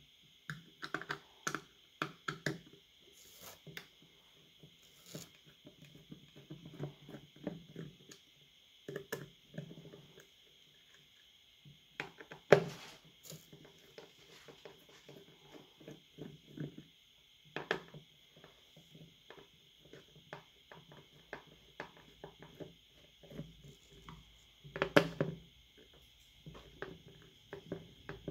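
Small screwdriver working the screws and hands handling the plastic back cover of a handheld GPS unit: a long run of scattered small clicks, taps and scrapes, with two louder knocks about twelve seconds in and near the end, over a steady faint high whine.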